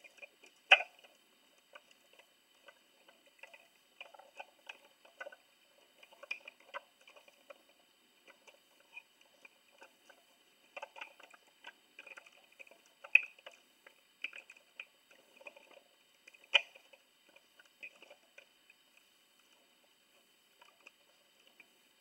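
Plastic housing halves of a Black and Decker cordless drill being handled and pressed together by hand: scattered small clicks, taps and scrapes of hard plastic, with three sharper knocks spread through, the first about a second in.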